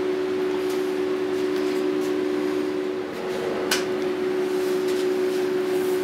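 A steady hum of a few constant tones, with a single sharp click a little past halfway through.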